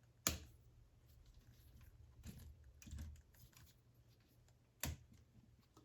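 Plastic K'nex pieces clicking and tapping as they are handled and locked into place: a sharp click just after the start, a few softer taps around two to three seconds in, and another sharp click near five seconds.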